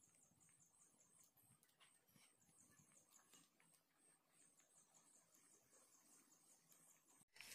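Near silence, with faint high-pitched insect chirping, such as crickets, in short repeated trains.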